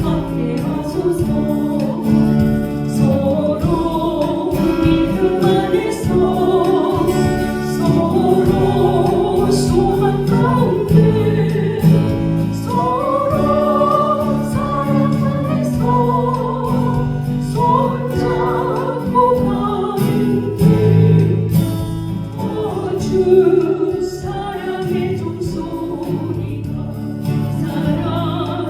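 Singing of a Korean gospel song, the church's special song, over steady musical backing.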